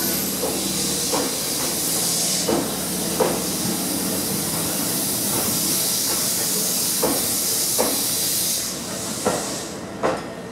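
Tobu 8000 series electric train cars rolling past, with wheel clicks over the rail joints every second or so above a steady hiss. The hiss fades out about nine seconds in.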